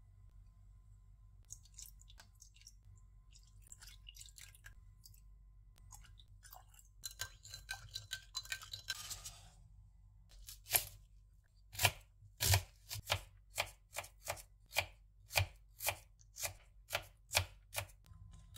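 Kitchen knife chopping food on a cutting board, an even run of sharp strikes about two a second through the second half. Before it there are a few seconds of rustling with light clicks.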